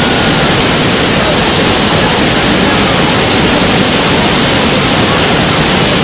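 Waterfall sound: a loud, steady rush of falling water with no breaks.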